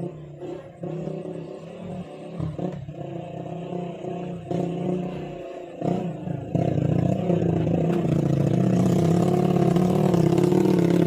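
Chainsaw engine running under load while cutting wood, its pitch wavering and dipping at times, then running louder and steadier from about six and a half seconds in.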